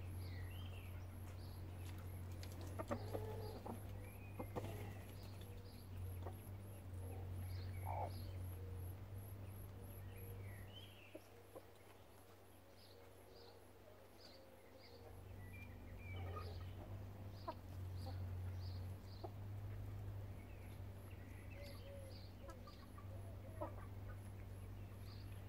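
Backyard chickens clucking softly, with short calls now and then, over a low steady hum that fades out for a few seconds near the middle.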